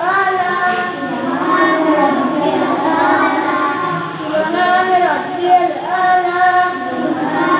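Young voices chanting melodically together, with long held notes that rise and fall in pitch, echoing in a prayer hall.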